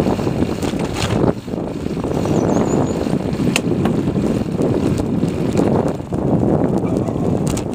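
Wind buffeting an exposed camera microphone on a moving vehicle, a steady loud rush with vehicle running and road noise underneath, and a few short clicks.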